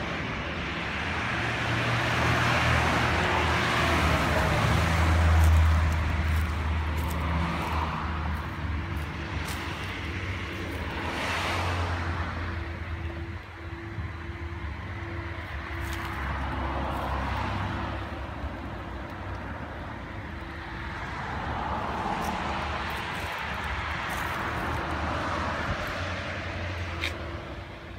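Road traffic: cars passing one after another, each swelling and fading over a few seconds, over a steady low hum.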